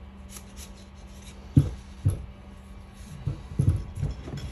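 Dull knocks and light clatter of RC helicopter skid and frame parts being handled and set down on a workbench: one knock about a second and a half in, another half a second later, then a quick cluster of several near the end.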